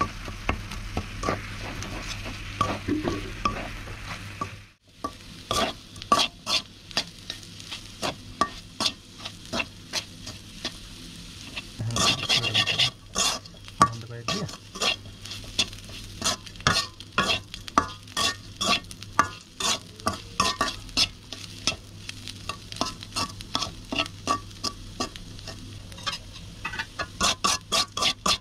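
Metal spatula scraping and tapping against a karahi, many quick irregular strokes, as minced Bombay duck (loitta fish) is stir-fried dry into jhuri, with a light sizzle from the frying. A steady low hum runs underneath, and the sound briefly drops out about five seconds in.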